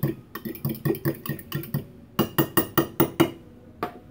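A fork beating eggs into milk in a glass Pyrex measuring jug, clinking against the glass about five times a second. The strokes grow louder midway, stop a little after three seconds in, and one last light clink follows near the end.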